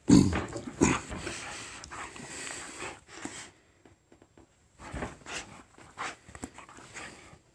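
Young dog playing wildly on a bed, panting and giving dog sounds amid rustling of the bedding, loudest right at the start, with a brief lull about halfway through before the scuffling picks up again.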